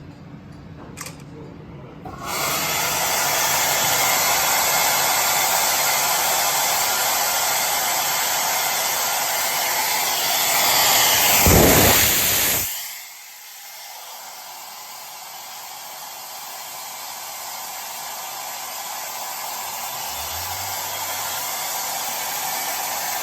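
Mercedes turbocharger run up on a turbo test stand: a loud rushing of air starts about two seconds in and holds steady, swells with a rising whine around eleven seconds, then drops suddenly to a softer hiss that slowly climbs again.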